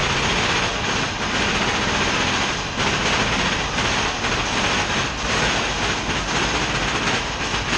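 Mine-train roller coaster running along its track: a steady, loud rumble and rattle of wheels, with wind rushing past.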